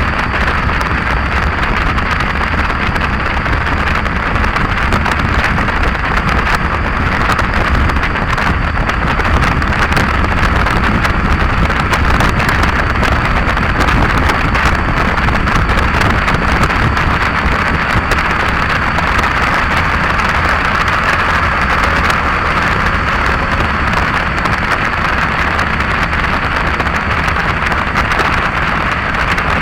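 Heavy wind noise on the microphone while riding a bike down the road: a steady, loud rushing with a low rumble of road and vehicle noise beneath it.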